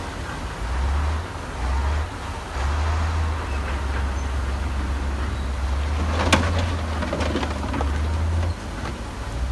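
Heavy diesel earthmoving machinery running with a deep, uneven rumble. About six seconds in comes a sharp clank, followed by a short run of smaller knocks.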